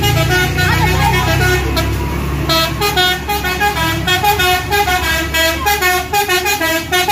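A bus's telolet basuri horn, a multi-note musical horn with a flute-like tone, playing a quick melody of short notes that speeds up into a rapid run a few seconds in. A bus engine rumbles beneath it and drops away about six seconds in.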